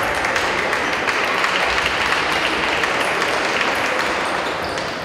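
Spectators applauding a point just won in a table tennis match: dense clapping that fades out near the end.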